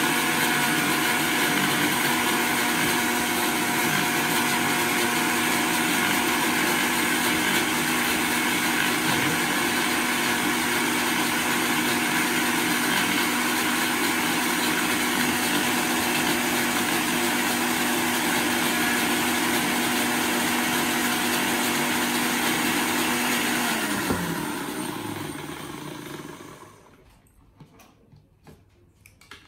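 Electric kitchen blender motor running steadily, blending fruit into juice. About 24 seconds in it is switched off and its pitch falls as it spins down, leaving a few faint clicks.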